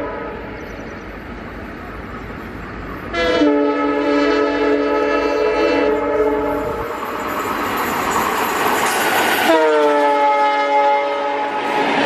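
WDP4B diesel locomotive passing at speed and sounding its air horn twice: a held chord about three seconds in, then a second blast near the end whose pitch drops as the locomotive goes by. Between and under the blasts, the locomotive and its coaches make a rising rush and clatter as they pass.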